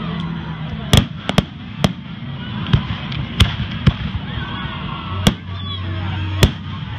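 Aerial firework shells bursting overhead: about eight sharp bangs at uneven intervals, the strongest about a second in and again near the end, over a steady background of crowd chatter.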